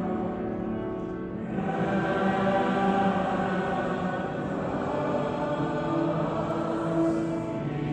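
Choir singing a sacred hymn in long held notes.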